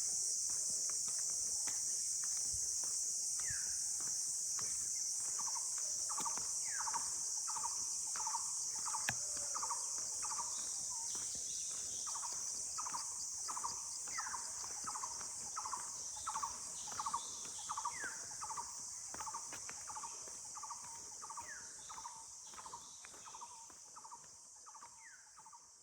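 Steady, high-pitched insect chorus, with a bird repeating short calls about twice a second, some sliding downward. Both fade out near the end.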